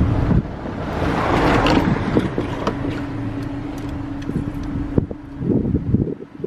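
A car engine running steadily, with a gust of wind hiss on the microphone about a second in.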